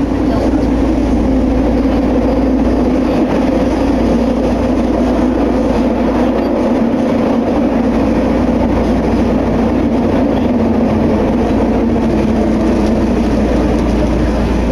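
Steady running noise inside a Nagahori Tsurumi-ryokuchi Line subway car, a linear-motor train, travelling through a tunnel.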